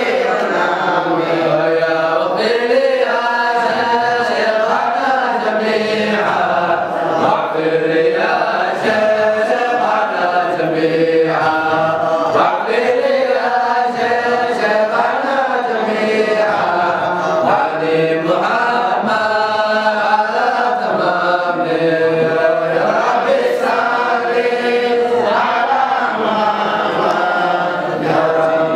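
Group of men's voices chanting a dhikr together, unaccompanied, led by one singer on a microphone. The chant runs on without a break.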